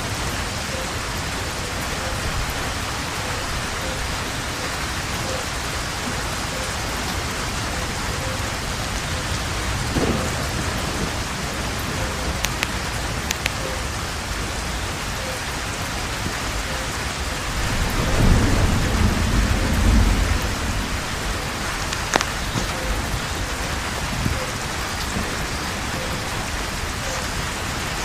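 Steady heavy rain falling on foliage, with a low rumble of thunder swelling about two-thirds of the way through and lasting a couple of seconds. A few sharp cracks stand out above the rain.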